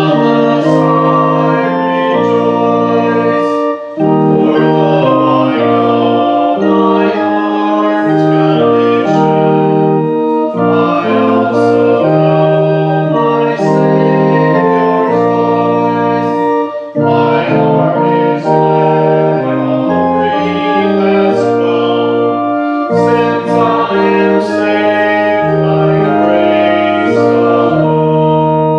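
Church organ playing a hymn in full, sustained chords over a low pedal bass, with short breaks between phrases.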